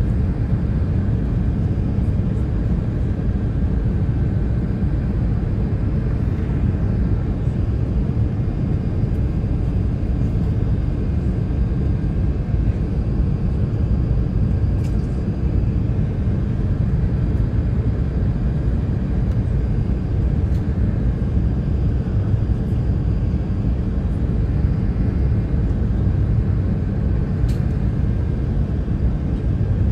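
Steady cabin rumble of an Airbus A380 on its descent, the engines and airflow heard from inside the passenger cabin, with a faint steady whine above the rumble. A faint click comes about halfway through and another near the end.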